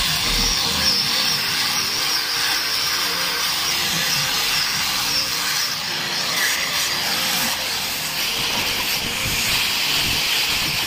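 Electric angle grinder with a sanding disc running against the hardwood of a bed frame, sanding it smooth: a steady, continuous grinding hiss with no pauses.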